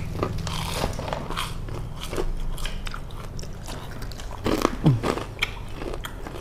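Close-miked chewing and biting of crispy fried Indonesian street snacks: irregular crunching and wet mouth noises.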